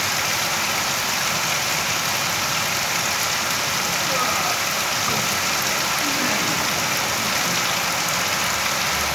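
Steady rain falling, a constant even hiss of drops on surfaces.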